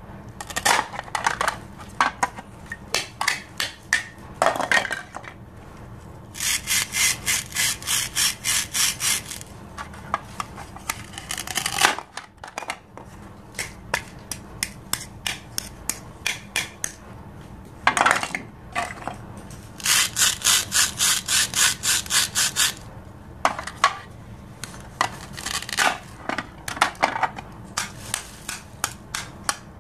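A plastic toy knife sawing back and forth through plastic toy fruit and vegetables on a plastic cutting board: quick rasping strokes in runs of two or three seconds. Between the runs come plastic clicks and knocks as the cut pieces are handled.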